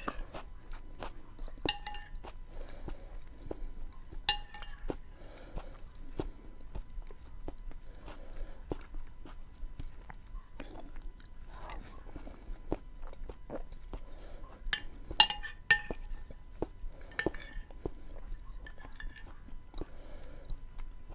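Close-up mouth sounds of someone chewing soft beans, with many small wet clicks. A few ringing clinks of cutlery against the dish stand out, the loudest a little after halfway.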